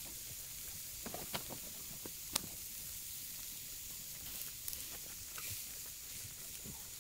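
Burger patties sizzling on a steel grill over a wood fire, a steady hiss, with a few sharp clicks and taps as a spatula works at them; the loudest tap comes a little over two seconds in.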